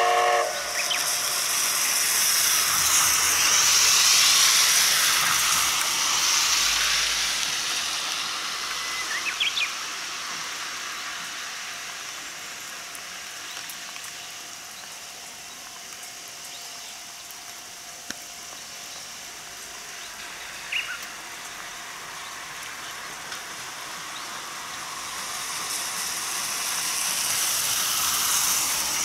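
C12-class steam tank locomotive starting a train, with steam hissing loudly from its open cylinder drain cocks. The hiss swells over the first few seconds, fades through the middle, and rises again near the end as the engine draws closer.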